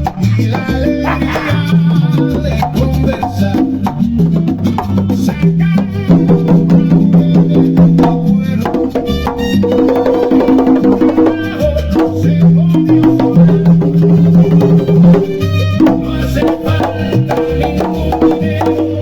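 Salsa music played by a full band, with held bass notes under a busy percussion part that includes congas.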